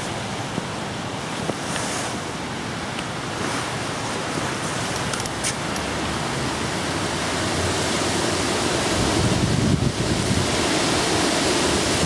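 Wind blowing across the microphone, a steady rush that grows louder and gustier in the second half.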